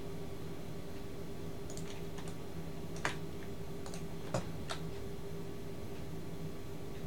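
About half a dozen short clicks of computer keys and mouse buttons, bunched in the middle few seconds and the loudest two about a second apart, over a steady low electrical hum.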